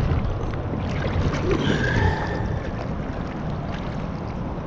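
Double-bladed paddles dipping and pulling through lake water from an inflatable tandem kayak, with light splashing and water noise.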